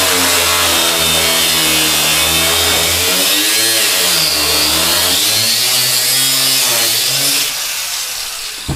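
A power tool running hard under load, its pitch dipping and rising as it bites, then switched off near the end and winding down, followed by a single knock.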